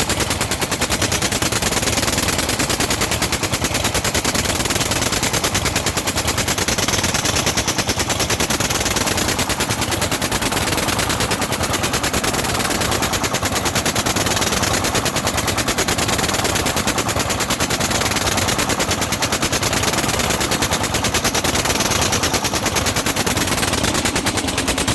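Diesel engine running steadily, with a rapid, even knocking beat from its exhaust and combustion, and running smoothly.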